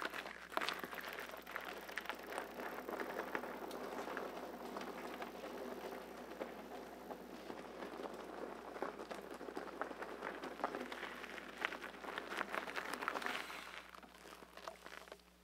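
Four-inch fat tyres of an electric bike rolling over loose gravel: a steady crunching crackle of stones under the wheels, which dies away as the bike rolls to a stop near the end.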